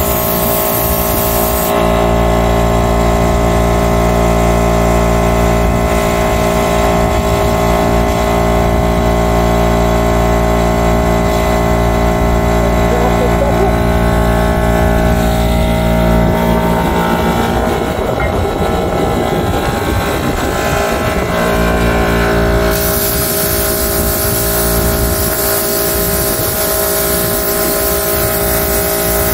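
Air compressor running steadily and loud, a constant hum of many even tones. The siphon spray gun's air hisses over it briefly at the start and again through the last several seconds.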